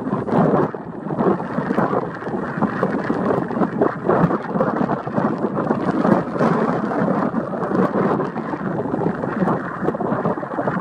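Boeing 777-300ER's GE90-115B jet engines heard from a distance during the landing roll-out: a steady, rough rumble with no clear tone, its loudness flickering throughout.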